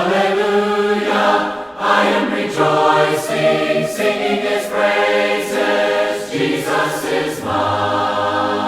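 Several voices singing a hymn a cappella, in harmony, with no instruments.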